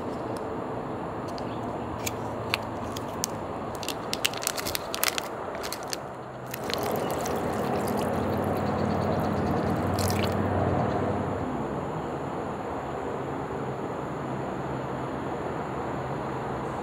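Crinkling plastic packaging with sharp clicks and squishes as food is squeezed out of a vacuum pack. About six seconds in, water pours from a plastic bottle into a plastic food tray, a steady rush lasting about five seconds.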